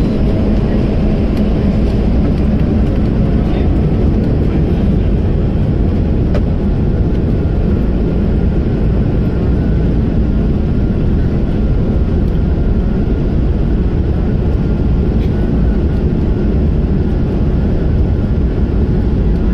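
Cabin noise of an Airbus A220-300 with its Pratt & Whitney PW1500G geared turbofan engines running: a loud, steady, deep rush of engine and airflow noise with a faint steady whine above it.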